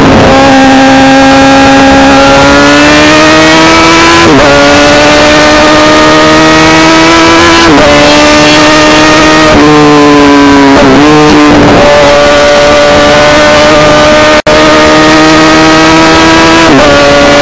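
Road motorcycle's engine through a very loud exhaust, heard close to the silencer while riding: the pitch climbs steadily under acceleration and drops sharply at each gear change, about five times. The sound cuts out for a split second about two-thirds through.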